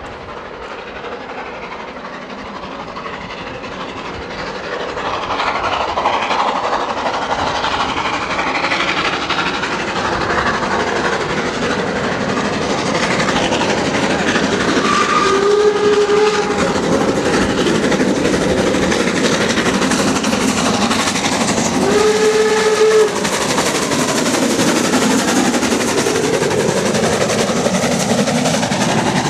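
Harzer Schmalspurbahnen narrow-gauge steam train approaching, its running noise growing steadily louder. Two blasts of the locomotive's steam whistle, each about a second long, sound about halfway through and again a few seconds later.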